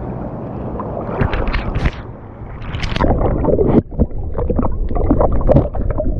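Water sloshing, splashing and gurgling around a camera held underwater in shallow surf, with bubbles rushing past it in uneven spurts.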